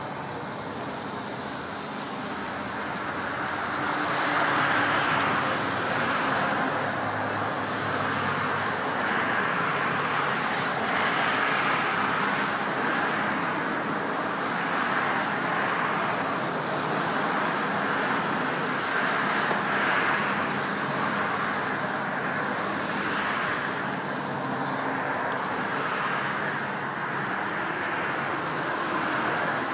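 Steady road-traffic noise, swelling and easing every few seconds as vehicles pass. Underneath it is the low, even hum of the long-reach excavator's diesel engine as it works its boom on the barge.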